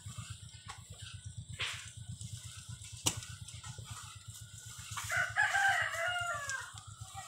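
A rooster crows once, starting about five seconds in; this is the loudest sound. Underneath is a steady low rumble from the potter's wheel turning as a clay pot is shaped on it, with a sharp click about three seconds in.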